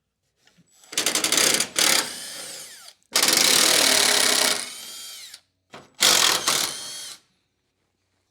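Handheld power tool run in three bursts, each ending in a falling whine as the motor spins down, used to get stuck fasteners on the truck's front-end trim loose.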